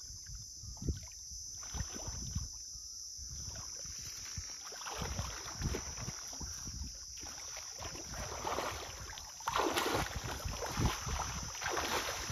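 Water splashing and sloshing as a man wades through shallow river water with a hooked fish thrashing at the surface. The splashing grows louder in the second half and is loudest about ten seconds in.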